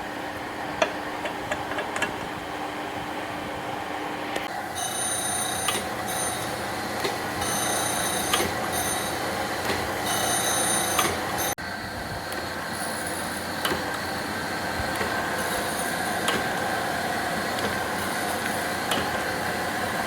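Surface grinder running steadily, with high ringing tones that come and go over the machine noise, likely from the wheel working metal. The sound breaks off for an instant about halfway through.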